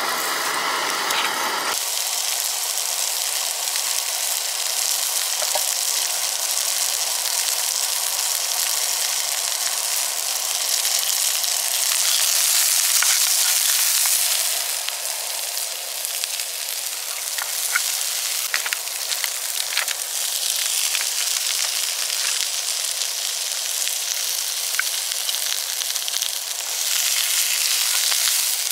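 Chopped red onion sizzling in a frying pan on a gas camping stove, the sizzle starting abruptly about two seconds in as the onion lands in the hot oil. A wooden spatula stirring gives small scattered clicks and scrapes, and the sizzle swells louder near the end.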